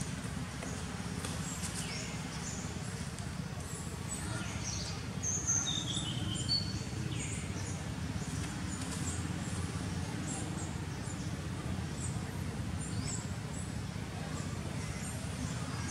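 Steady low outdoor rumble with many short high-pitched animal chirps and squeaks scattered through it, two louder falling squeaks about a third of the way in.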